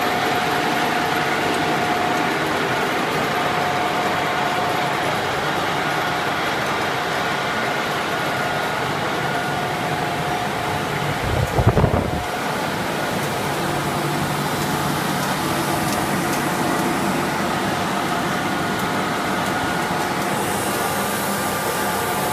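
Twin-screw extruder line running: a steady industrial machine drone with faint steady hum tones. There is a brief low thump a little before halfway, and a higher hiss joins near the end close to the strand pelletizer.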